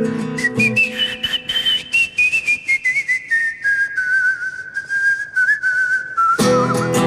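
A man whistles a sevillanas melody with a wavering vibrato, climbing high about a second in and stepping slowly back down. A nylon-string Spanish guitar accompanies him: it drops out just after the start and comes back in strumming near the end, with sharp taps keeping time behind the whistle.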